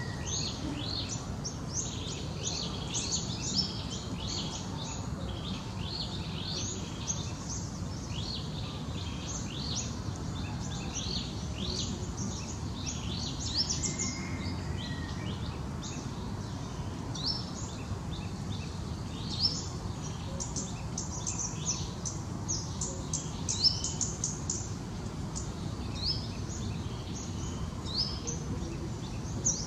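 Small birds chirping in quick, high, scattered chirps throughout, over a steady low background noise.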